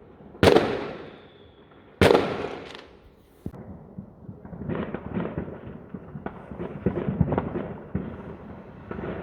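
Fireworks going off: two loud bangs about a second and a half apart, each trailing off in a long echo, then a run of smaller crackling pops for the rest of the time.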